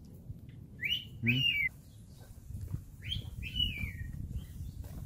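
A dog whining: four short, high-pitched whines, each rising and then falling in pitch, two close together about a second in and two more near the middle.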